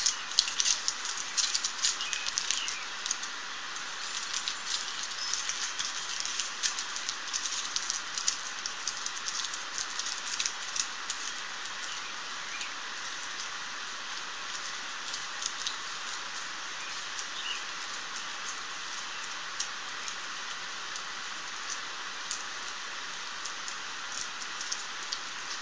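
Aluminium foil crinkling and crackling as it is wrapped and pressed around a wire limb by hand, in quick irregular crackles that are busiest in the first half and thin out later, over a steady hiss.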